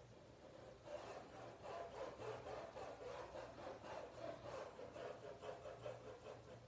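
Paintbrush scrubbing fabric paint onto cloth in quick back-and-forth strokes, about three a second, starting about a second in; faint.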